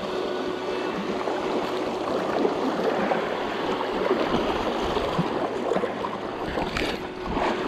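Steady rush of moving water, with a few brief louder splashes near the end.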